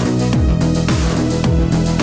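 Music with a steady kick drum beat, a little under two beats a second, under held synth chords.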